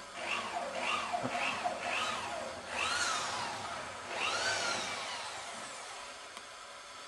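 Electric drill motor whining up and down in pitch as the trigger is pulsed in four short bursts, then run twice for longer spells, working at a stubborn screw.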